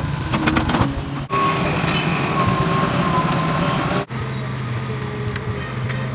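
Excavator diesel engine running under load, with a wavering hydraulic whine and scattered metallic knocks. The sound breaks off abruptly twice at edit cuts.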